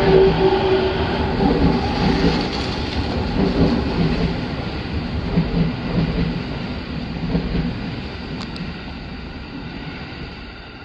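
Electric commuter train pulling away from the platform, its running noise fading steadily as it recedes.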